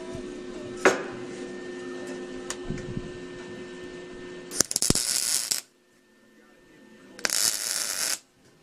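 MIG welder laying two short tack welds, each a burst of crackling about a second long, over a steady electrical hum with a sharp click about a second in.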